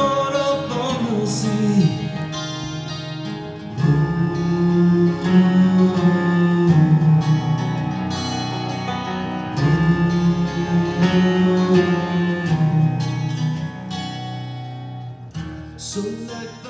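A recorded song with a male singer and guitar played back through a JBL EON ONE portable column PA speaker, getting quieter near the end.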